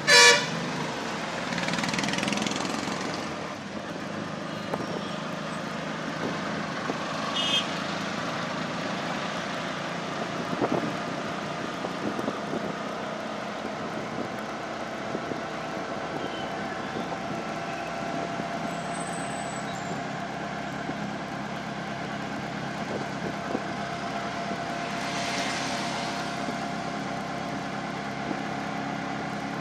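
Auto-rickshaw engine running steadily under way in traffic, heard from inside the open passenger cabin. A loud, short horn honk sounds right at the start, and a brief second honk about seven and a half seconds in.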